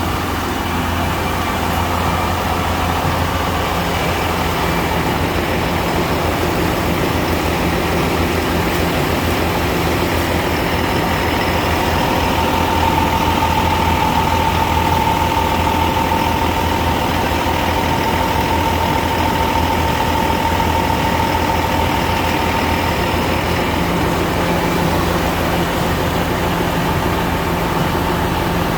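An engine running steadily, with a higher whine rising and then fading out in the middle.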